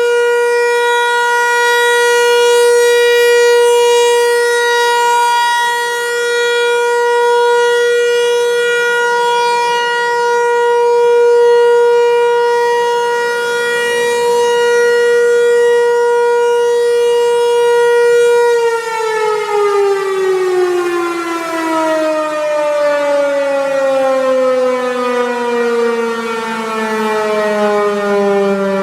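Federal Signal 508-128 dual-tone rotating outdoor warning siren sounding a steady alert chord that slowly swells and fades in loudness. About two-thirds of the way through, the rotor begins to wind down and the chord slides steadily lower in pitch.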